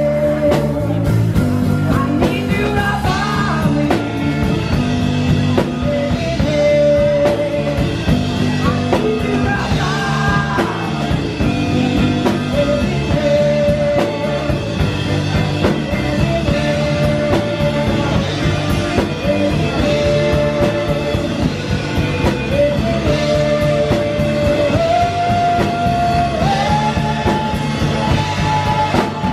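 Live band playing: a woman singing lead over electric guitar, electric bass and drum kit. She holds long notes, stepping up to a higher held note near the end.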